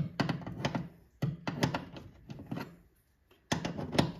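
Clicks and knocks of a socket ratchet and hand tools on metal behind a car's dashboard. They come in three short flurries, with a brief quiet spell a little under three seconds in.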